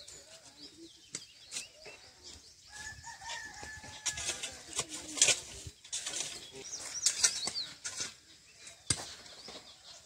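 Village outdoor sounds: small birds chirping throughout and a rooster crowing once, about three seconds in, with scattered clicks and knocks.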